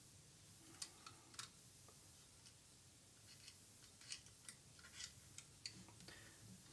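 Near silence, broken by about half a dozen faint, light clicks and taps as a needle oiler is worked against the cylinder and drive rods of a toy steam locomotive to oil them.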